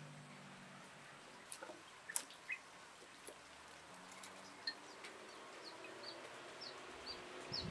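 A small bird chirping faintly, short high notes repeated about three times a second through the second half, with a few sharp clicks in the first half.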